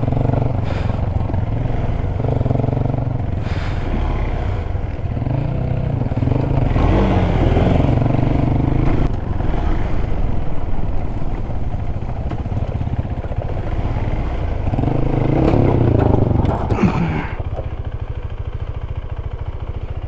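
KTM 390 Adventure's single-cylinder engine running on a rough dirt track, rising and falling in pitch with the throttle, then settling to a steady idle for the last few seconds as the bike stops.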